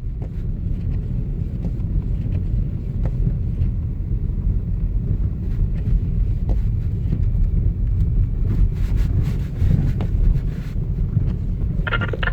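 Steady low rumbling noise with a few faint clicks; a brighter sound comes in near the end.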